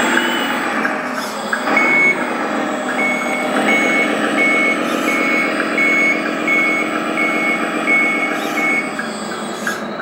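The sound module of a 1/14 scale RC Komatsu WA480 wheel loader plays a simulated engine running. From about two seconds in until about a second before the end, an electronic reversing beeper sounds about twice a second.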